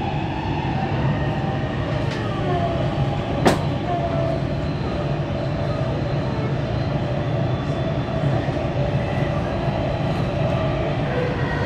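Dubai Metro train running between stations, heard from inside the car: a steady rumble, with one sharp click about three and a half seconds in.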